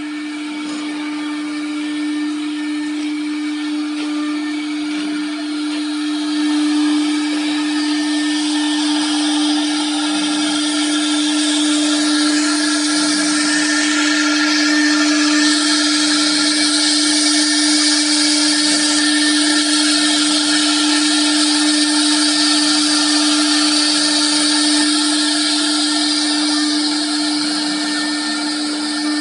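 Wood CNC router running: the spindle gives a steady whine while the bit cuts wood with a hissing cutting noise. The cutting noise grows louder about midway through.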